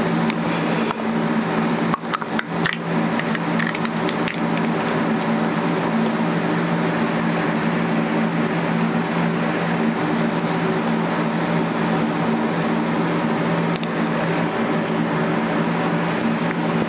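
A steady hum of several low tones runs throughout. Over it come the crinkling of a paper or foil wrapper, mostly in the first few seconds, and a few light clicks later on.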